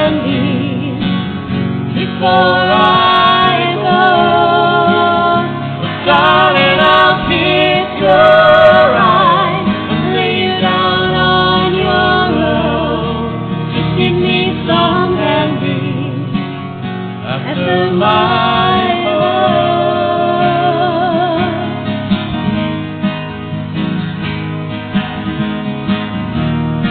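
A singer with vibrato singing a slow song over acoustic guitar.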